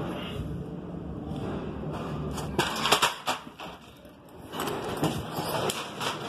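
Wheel-O-Vator elevator humming steadily, then a sharp clunk and rattle about two and a half seconds in. A quieter moment follows, then more knocks and rattles near the end as the car door's handle and latch are worked and the door is opened.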